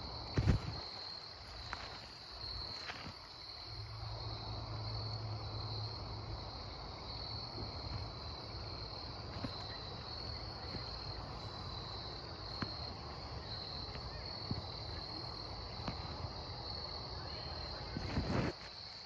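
Insects trilling in a steady high-pitched chorus, over a low rumble, with a thump about half a second in and a short burst of knocking near the end.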